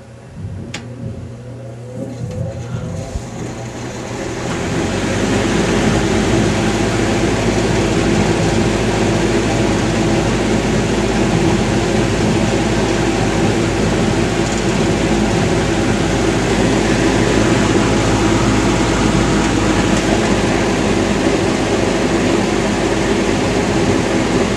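1979 JC Penney/Lakewood Model 9700 box fan fitted with a metal Berns Air King blade. A click, then the fan comes up to speed over a few seconds and runs steadily with a rush of air over a motor hum.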